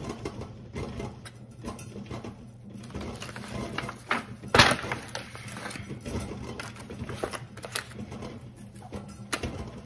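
Hands rubbing seasoning into a raw whole chicken in an aluminium foil tray: soft wet handling and crinkling of the foil, with a louder thump about four and a half seconds in as the bird is lifted and turned over. A low steady hum runs underneath.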